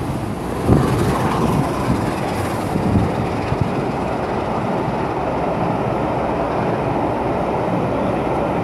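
Passenger coaches of a steam-hauled train running past below, wheels rumbling steadily on the rails, with a few sharp clacks over the first few seconds.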